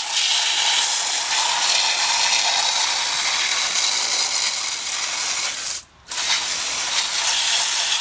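A garden hose spray nozzle jets water onto a heat pump's outdoor condenser coil and the ground beside it, making a steady hiss. The spray cuts off briefly about six seconds in, then starts again.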